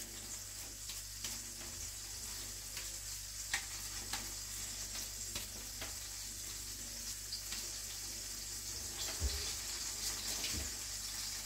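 Steady faint sizzling hiss of margarine heating in a pot, with scattered soft pats and ticks of hands shaping minced-meat patties, and two dull thumps near the end.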